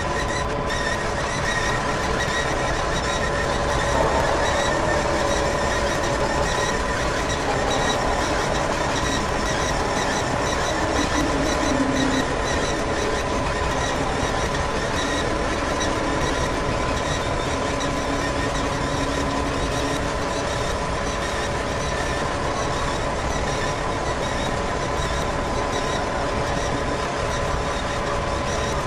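Pioneer 3-AT four-wheeled robot's geared drive motors running as it drives, a steady mechanical whine with a constant high tone over a noisy hum, with brief shifts in pitch a few seconds in.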